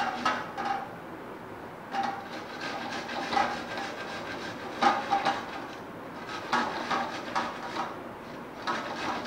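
A fresh sweet corn cob rubbed hard across a stainless-steel grater: a run of uneven rasping, scraping strokes as the kernels are grated off.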